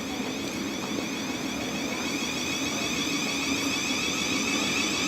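Class 700 Thameslink electric multiple unit standing at the platform, its electrical equipment giving a steady hum with a high whine that grows slowly louder.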